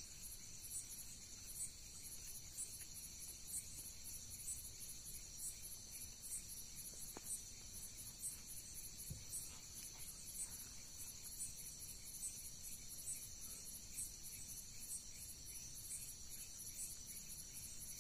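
Crickets chirping in the night: a steady high trill with regular pulsing chirps over it.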